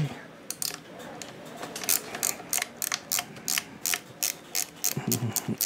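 Socket ratchet wrench clicking in an even rhythm, about three clicks a second, as it is swung back and forth to loosen a bolt.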